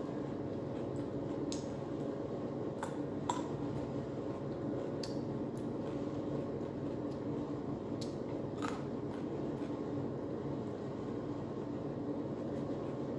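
Someone chewing and biting bread: a handful of sharp, scattered mouth clicks and small crunches over a steady low hum.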